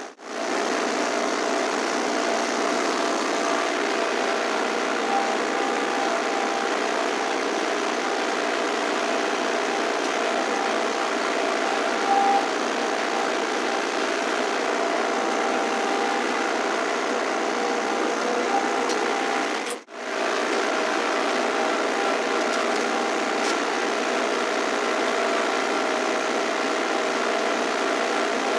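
Massey Ferguson 1020 compact tractor's 1.1-litre diesel engine running steadily under load, pulling a disc harrow through a field. The sound drops out for a moment about two-thirds of the way through.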